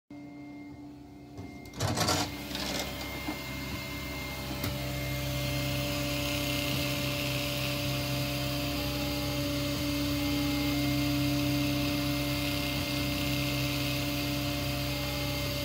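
3D printer printing a part, its stepper motors whining in several steady tones that shift in steps as the print head changes moves. A brief clatter about two seconds in.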